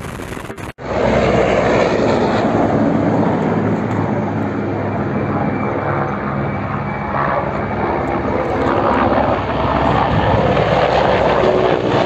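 Military helicopters flying low overhead: a loud, steady rotor and turbine noise that comes in after a brief cut a little under a second in and holds to the end.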